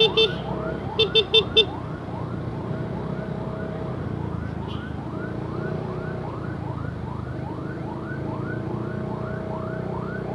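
Ambulance siren on a fast yelp: a rising wail repeated about two or three times a second. In the first two seconds, two short runs of rapid high electronic beeps cut in over it.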